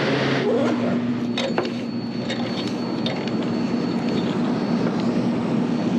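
Steady hum of running refrigeration equipment: one low steady tone with a faint high whine over it, and a few sharp clicks about a second and a half in.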